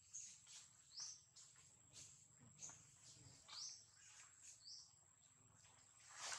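Faint outdoor ambience: a bird repeating a short rising chirp about once a second over a thin, steady high-pitched tone, with a brief louder rustle near the end.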